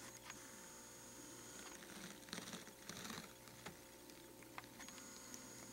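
Near silence: a faint steady electrical hum and room tone, with a few soft clicks and light rustles scattered through.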